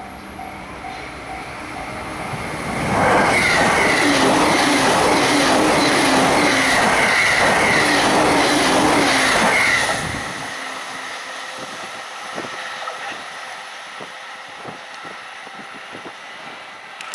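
Japanese level-crossing warning bell ringing in a steady beat, then a train on the Joban Line races past at high speed, a loud rush of wheels and rail noise lasting about seven seconds. As it goes by, the noise drops to fainter clicks of wheels over the rails.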